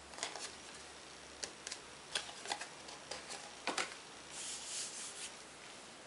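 Cardstock being handled on a craft mat: scattered light taps and paper clicks as the card panel is set down and shifted, with a soft rubbing swish a little past the middle as it is smoothed and pressed onto the card base.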